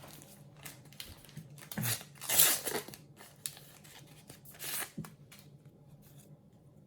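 A Topps sticker packet being torn open and its wrapper crinkled: a loud rip about two and a half seconds in and a shorter one near four and a half seconds, with smaller rustles between.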